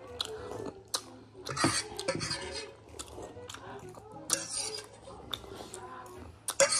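Metal spoon clinking and scraping against a plate as someone eats the last of the ramen and its sauce, in a string of short, irregular clicks.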